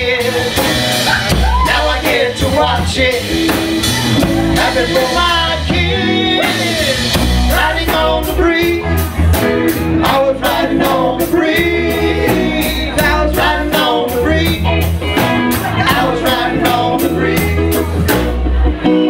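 Live rock band playing: electric guitars, bass and a drum kit, with a voice singing at times. The cymbals keep a steady beat of about four hits a second through most of it and drop out just before the end.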